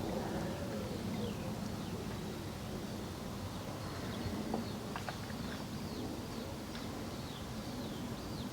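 Birds calling faintly, with many short downward-sliding chirps, over steady outdoor background noise and a few faint ticks near the middle.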